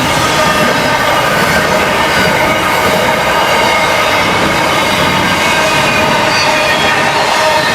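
Freight train rolling past at close range: a steady loud rolling noise with several steady ringing tones over it.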